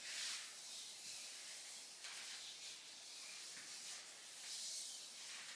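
Faint rubbing and swishing of a dance hoop turning through the hands and the air, with a few soft swooshes a couple of seconds apart.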